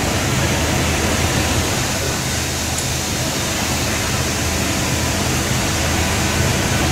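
Hyster forklift running steadily while holding a load: a low engine hum under a broad, even hiss of shop noise.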